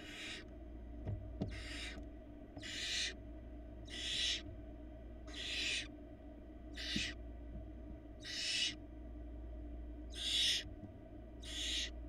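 Barn owl nestlings giving their rasping, hiss-like begging calls, one about every second and a half, nine in all. A few faint knocks from the chicks shifting on the wooden nest box floor sound near the start.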